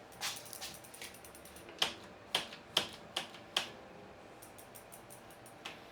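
Irregular sharp clicks and taps, about eight of them, from hand-tool work on a Shimano mechanical disc brake caliper while the pads are being set close to the rotor.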